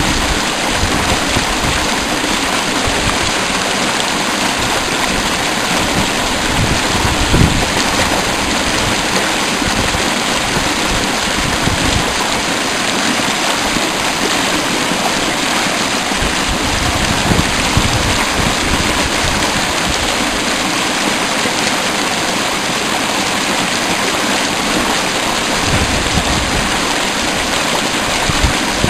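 Mountain stream rushing steadily and loudly, a constant wash of water, with a few brief low thumps.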